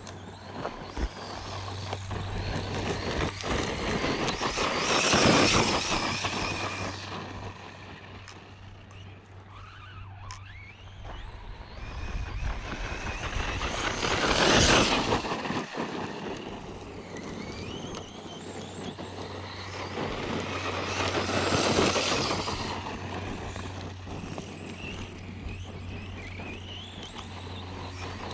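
Arrma Outcast 4S V2 RC truck's brushless electric motor and tyres running over gravel and dust, swelling louder and fading three times as it accelerates, about 5, 14 and 21 seconds in.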